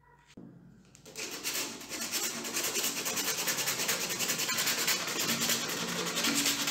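Rapid back-and-forth hand scrubbing with an abrasive against the corroded base of an old copper candlestick. It starts about a second in and keeps going in fast, even strokes.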